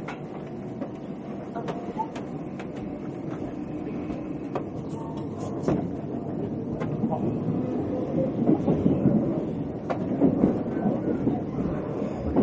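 Running rumble of the Thunderbird limited express electric train, heard inside the passenger car, with a few scattered sharp clicks. The rumble grows louder through the last few seconds.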